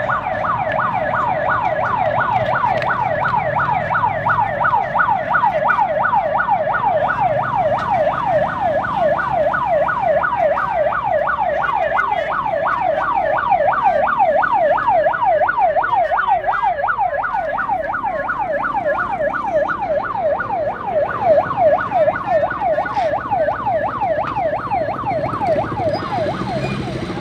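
Police vehicle siren on a fast yelp, its pitch sweeping up and down about three times a second without a break, over a low background rumble.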